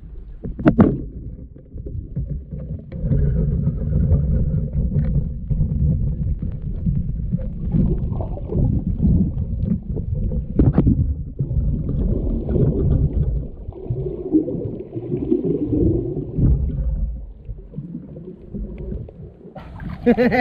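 Muffled underwater rumble and water swishing picked up through an action camera's waterproof housing as it moves through the sea, with a couple of sharp clicks, one about a second in and one about ten seconds in.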